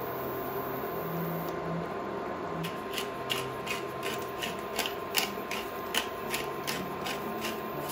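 Wooden pepper mill being twisted to grind pepper: a run of short crackling clicks, about three a second, starting a few seconds in.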